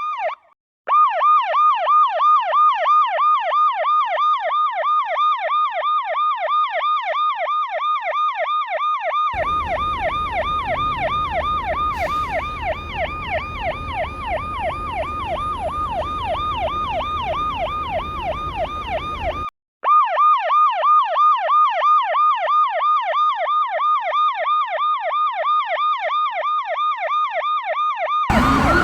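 Ambulance electronic siren in fast yelp mode: rapid rising-and-falling sweeps, several a second, repeating steadily. It cuts out briefly about half a second in and again around nineteen seconds; between about nine and nineteen seconds a low vehicle rumble runs under it, and near the end a louder, different siren sound with rumble takes over.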